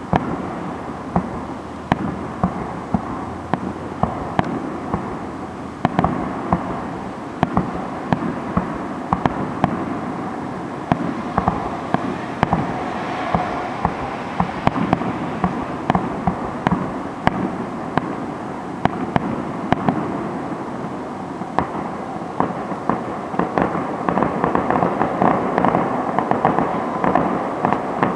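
Aerial fireworks shells bursting in repeated sharp bangs over a steady crackling din. The bangs come faster near the end.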